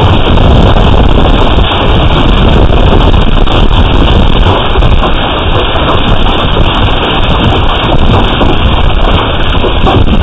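Hail and heavy rain pelting down in a dense, loud, steady patter of impacts, with wind buffeting the microphone, picked up by a security camera's built-in microphone.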